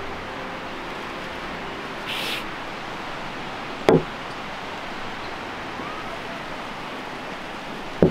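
A glass vase with a flowering branch set down on a cloth-covered table: a single sharp knock about four seconds in, with a second knock near the end, over a steady outdoor rush. A brief hiss about two seconds in.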